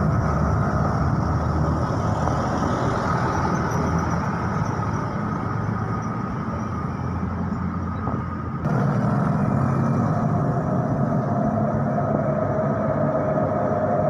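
Road traffic passing close by: truck and motorcycle engines running over tyre and road noise. The sound breaks off abruptly a little past halfway and picks up again.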